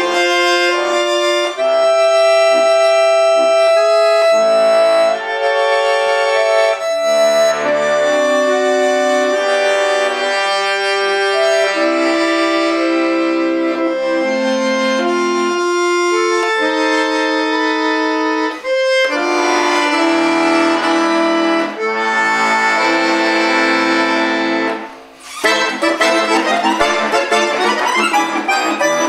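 Chromatic button accordion played solo: a slow melody in long held chords and notes, then, after a brief dip near the end, a faster passage of quick running notes.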